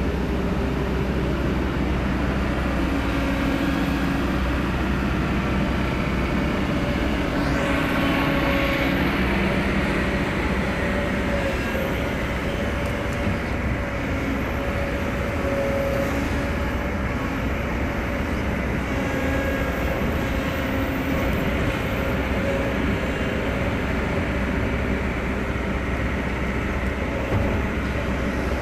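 Heavy diesel excavator engines running steadily, a loud low rumble with a hum that shifts in pitch now and then.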